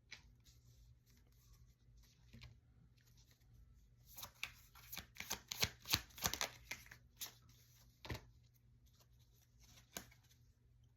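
A tarot deck being shuffled: a quick run of card flicks and slaps for about three seconds in the middle, with a few single card snaps before and after.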